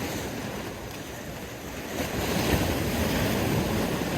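Steady noise of wind on the microphone and water, growing louder about two seconds in.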